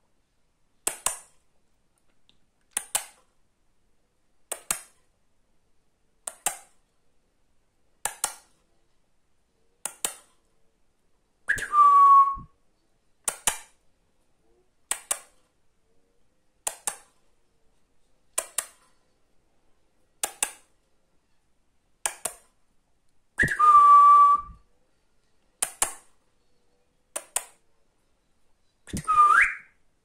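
Finger snaps at a steady beat, about one every two seconds. Three times a louder short whistle breaks in, sliding down in pitch and then holding a note.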